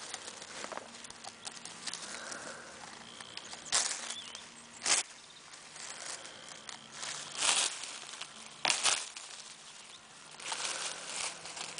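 Olive tree branches and leaves rustling in about five short bursts as they are shaken and stripped by hand during the olive harvest.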